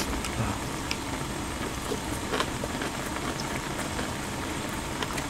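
Pot of Ansungtangmyeon ramyeon broth boiling on a portable gas burner: a steady bubbling hiss with a few faint pops.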